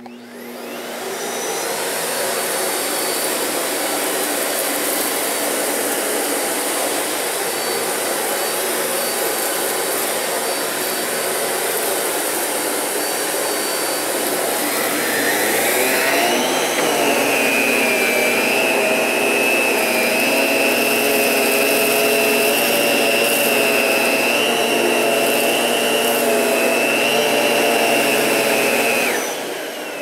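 Miele Dynamic U1 Maverick upright vacuum cleaner switching on and running steadily while it picks up debris from a bare hard floor and then from carpet. About halfway through, a higher whine rises and then holds steady on top of the motor noise. The vacuum shuts off near the end.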